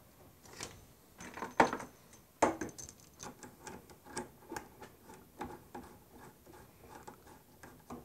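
Clicks and knocks of drain-hose fittings being handled and screwed onto a tankless water heater's service valves: a few sharper knocks in the first three seconds, then a run of light ticks.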